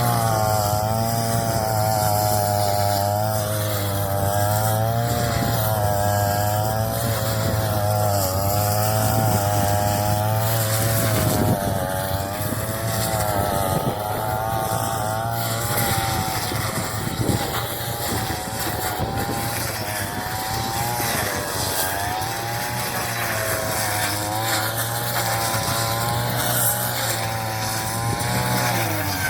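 Engine-driven straw chopping machine running steadily, its engine pitch rising and dipping continually as it takes load from the straw being fed in.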